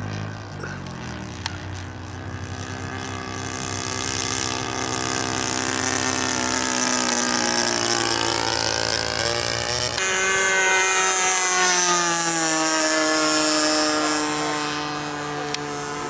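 Seagull A6M Zero RC model's 20cc two-stroke gas engine and propeller running in flight. The note grows louder as the plane comes close. About ten seconds in, the pitch drops and slides lower as it passes by.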